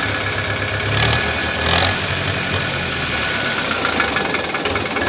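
Force Balwan 500 tractor's four-cylinder diesel engine idling steadily. The seller calls it a fine, faultless-sounding engine that is not blowing by at all.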